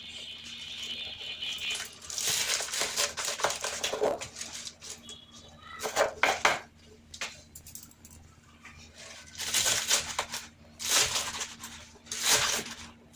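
Knife cutting vegetables on a cutting board: irregular bursts of chopping and slicing with sharp knocks of the blade against the board.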